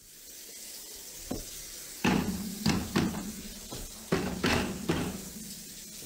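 Wooden cutting board knocked against a dishwasher's wire rack: a faint knock, then six sharp knocks in loose groups of two and three, each with a short ring.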